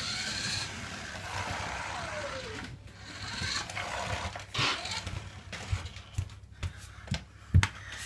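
Toy remote-control car's small electric motor whirring as it drives across a wooden floor, its whine falling in pitch as it slows about two seconds in, with another short burst of driving later. A few sharp knocks follow in the second half.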